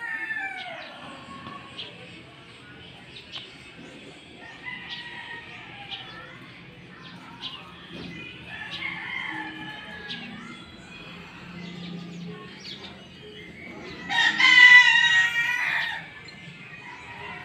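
A rooster crowing once, loud and about two seconds long, near the end, over faint scattered chirps and calls of other birds.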